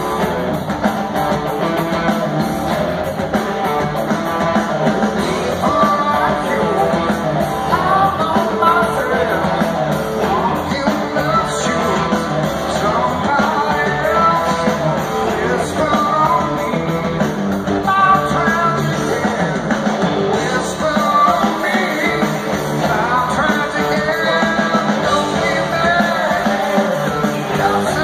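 Live rock band playing in an arena, heard from far back in the crowd: electric guitars with a lead vocal singing over them.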